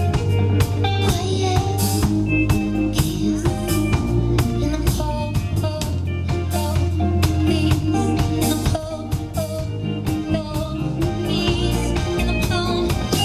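Live band music: a woman singing a song, with guitar and electric bass over a steady beat.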